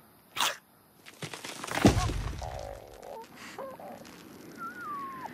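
Cartoon slapstick sound effects of the bird hitting the cactus: a quick swish, then a heavy thud about two seconds in that dies away, followed by small creaks and a short wavering, falling whistle-like tone near the end.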